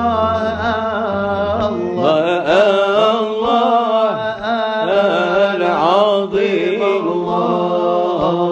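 Unaccompanied male voices singing a Moroccan Sufi samaa dhikr: a solo line drawn out in wavering, sliding melisma over a steady held low note.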